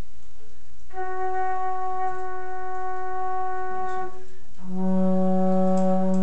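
Flute ensemble holding a long sustained chord for about three seconds, breaking off briefly, then sounding a second held chord with a strong lower note underneath.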